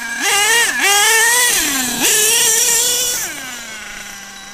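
Modded Picco .28 P3 two-stroke nitro engine of an HPI Savage X RC monster truck, idling and then revving in throttle bursts: two quick blips, then a longer pull held for about a second before the pitch falls back to a steady idle near the end.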